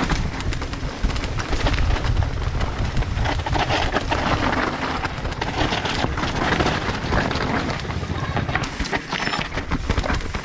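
Mountain bike riding fast down a leaf-strewn dirt trail: tyres rumbling and crunching over dirt, leaves and stones, with the bike clattering over bumps in a steady stream of sharp knocks.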